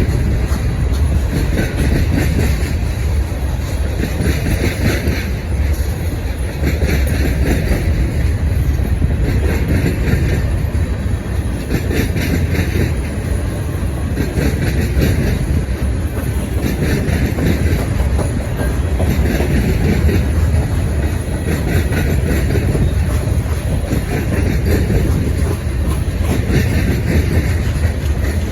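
Freight cars of a mixed manifest train rolling past with a steady rumble and wheel clatter. A higher rattle comes back every two to three seconds as car after car goes by.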